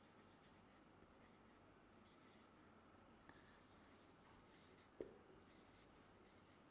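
Faint strokes of a marker pen writing on a whiteboard, with a sharper tap of the pen about five seconds in.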